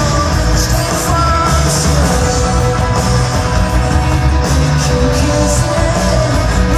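A rock band playing live and loud: a steady beat with heavy bass under sustained guitar and keyboard chords.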